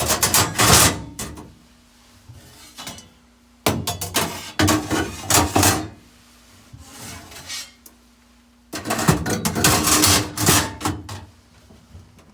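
Filter screens of a Fagor dishwasher being slid and knocked into place, clattering and scraping in bursts: three loud ones a few seconds apart and a fainter one between.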